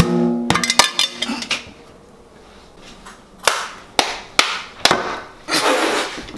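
An open metal tin knocked against a stainless steel saucepan to shake its contents loose. A ringing metallic clang opens, followed by a quick run of clicks, then four sharp knocks and a longer scraping noise near the end.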